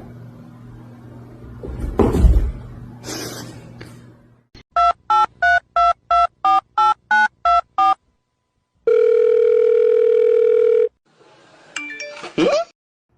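Telephone keypad touch tones: a number of about eleven digits dialed in quick, even beeps, followed by one long ringback tone of about two seconds as the line rings. A thump and rustling come before the dialing.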